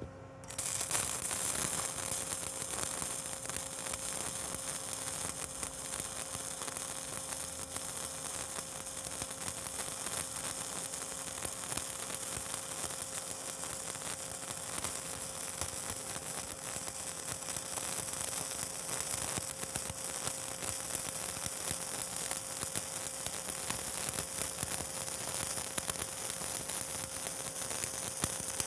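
Stick welding with a 7018 electrode on the cap pass: the arc strikes about half a second in, then burns with a steady crackling hiss over a constant hum.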